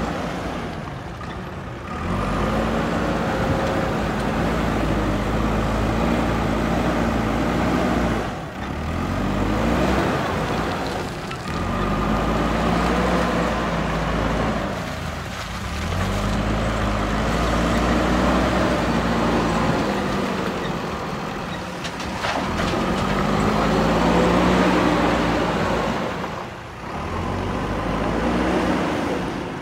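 JCB backhoe loader's diesel engine working under load, its revs rising and falling again and again as it drives through mud and carries soil in the front bucket, with brief drops in between.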